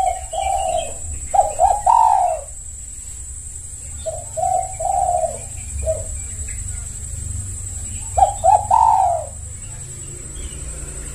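Spotted dove (tekukur) cooing. Several phrases of short coos, the fullest ones (about a second and a half in, and again about eight seconds in) ending in a longer falling note, then the calls stop for the last couple of seconds. A steady high-pitched whine and a low rumble run underneath.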